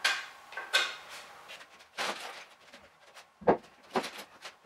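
Wooden parts and tools being handled on a wooden workbench: a few separate knocks and short scrapes, the loudest a sharp wooden knock about three and a half seconds in.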